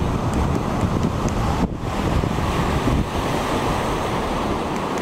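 Wind buffeting the microphone over the steady wash of surf, with a brief dip a little under two seconds in.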